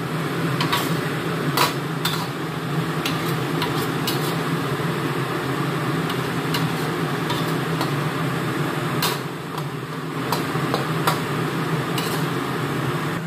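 Metal spatula scraping and knocking against a wok while stir-frying tomato and egg, heard as irregular clicks and scrapes over a steady hum.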